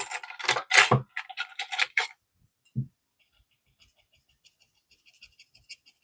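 A scratch-off sticker being scratched away in quick rapid strokes, loudest for the first two seconds. A soft thump about three seconds in, then lighter, fainter scratching.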